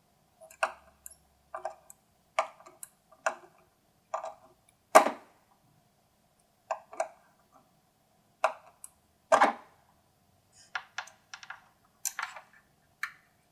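Irregular small clicks and taps of metal parts and tools as soldered ground wires are fastened to a grounding bus bar, two of them louder knocks about five and nine seconds in. A faint steady tone hums underneath.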